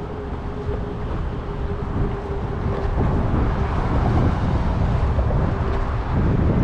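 Wind buffeting the microphone on a small boat, over a steady low hum, growing louder about two and a half seconds in.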